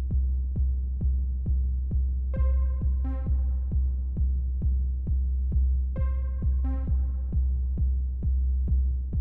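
Techno with a deep bass: a steady four-on-the-floor kick drum about twice a second over a sustained low bass, with a short pitched synth phrase that comes back every three to four seconds.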